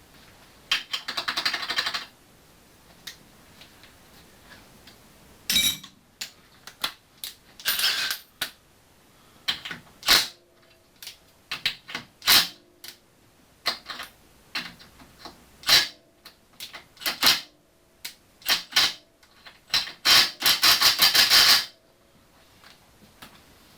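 Socket ratchet clicking in three quick runs, with scattered single clinks and taps of metal sockets and tools being handled.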